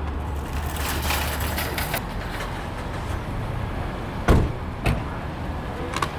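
Steady vehicle and traffic background with two sharp thumps about four and five seconds in, and a lighter knock near the end.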